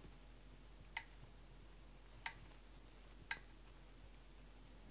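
Four light, sharp clicks at uneven intervals of roughly a second, over quiet room hiss.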